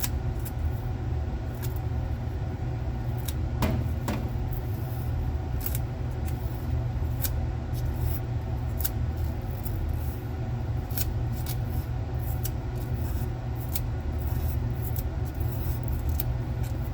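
Scattered small clicks and scrapes of a tool prying up the foil sealing sticker around a laptop hard drive's cover, a few stronger ones around four seconds in, over a steady low hum.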